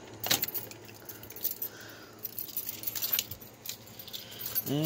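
A bunch of keys jangling as it is handled: irregular light clicks and jingles.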